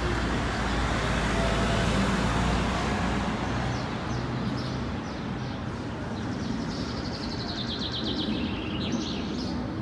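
Street ambience: a car passing on the road, loudest in the first three seconds, with small birds chirping throughout and a quick falling trill near the end.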